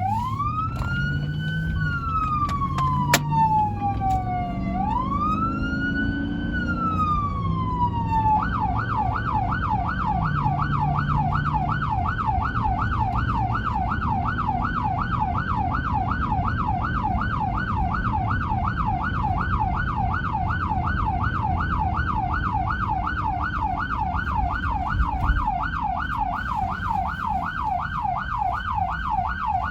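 Fire department vehicle's electronic siren on a wail, rising and falling slowly twice. About eight seconds in it switches to a fast yelp of about three to four warbles a second, which carries on steadily.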